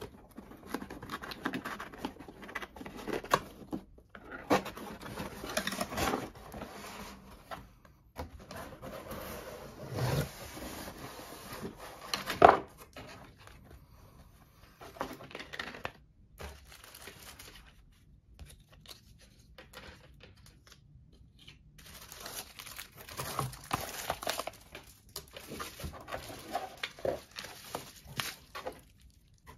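A cardboard shipping box being opened by hand and its contents handled: irregular cardboard scraping and tearing, and plastic packaging and bubble wrap crinkling. One sharp knock comes a little before halfway, and a quieter stretch follows later on.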